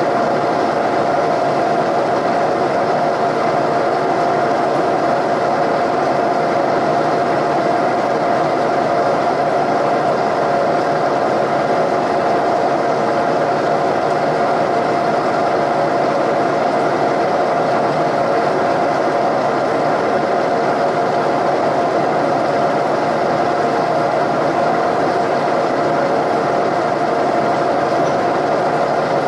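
Milling machine spindle running steadily while its bit drills out a broken exhaust manifold bolt in a Ford 460 cast-iron cylinder head, with a constant whine over the cutting noise.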